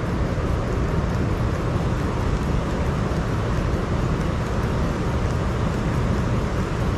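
Steady rushing of water at a dam, a constant noise heavy in the low end.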